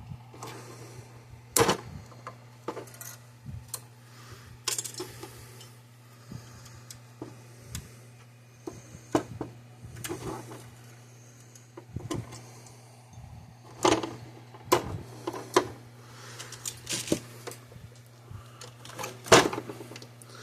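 Irregular clicks, taps and clatter of hand tools and small metal parts being handled during fence charger assembly, with a few sharper knocks, over a steady low hum.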